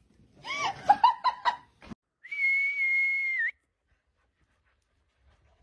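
A single steady high whistle, held for just over a second about two seconds in, its pitch dipping just as it ends. Short vocal sounds come before it.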